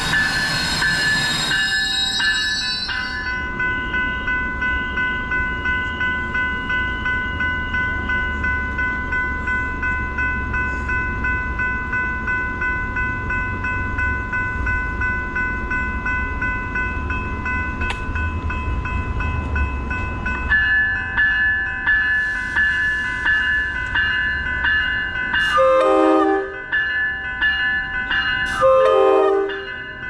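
A COASTER commuter train rolling slowly into the station, its engine rumbling low, while level-crossing bells ring steadily with a regular pulse. There is a burst of hiss with high squealing tones at the start. The train's horn sounds in short blasts near the end.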